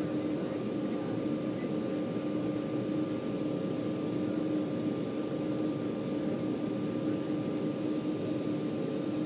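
Embraer 190's General Electric CF34 turbofan engines running at steady power as the jet moves on the ground, heard inside the passenger cabin: a steady drone with a few constant tones over a rushing noise.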